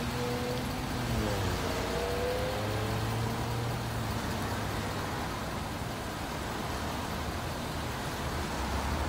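Steady vehicle and traffic noise, with an engine hum that dips and then rises in pitch over the first few seconds.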